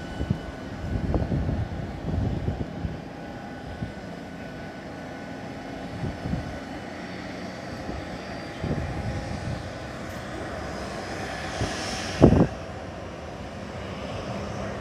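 Boeing 737-800 jet airliner on the ground giving a steady whine, with wind buffeting the microphone in gusts and one loud gust about twelve seconds in.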